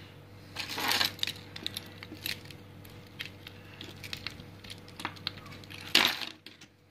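A bunch of keys jingling and clinking as it is picked up and handled, loudest about a second in and again about six seconds in, with small clicks and scrapes of a metal key worked against a plastic key fob in between.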